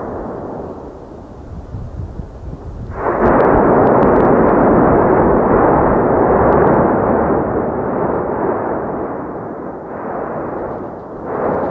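Volcanic eruption sound: a loud, low rumbling roar that swells abruptly about three seconds in, slowly eases, and surges again near the end.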